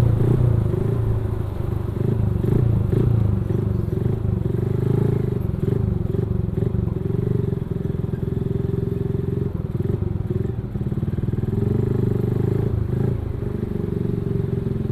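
Motorcycle engine running steadily while riding at low speed, with a constant low hum and no large changes in pitch.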